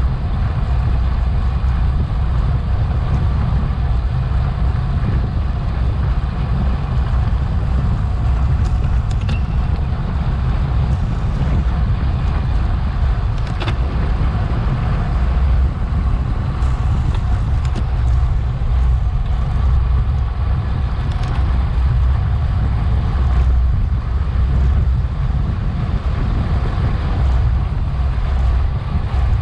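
Steady low wind rumble and road noise on a bicycle-mounted action camera at racing speed, with a few faint clicks.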